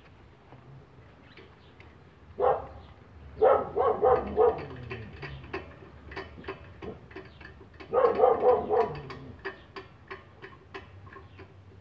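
A dog barking: one bark about two and a half seconds in, a quick run of barks around the fourth second, and another run about eight seconds in. Between the barks come small sharp clicks as a screwdriver works on the carburetor.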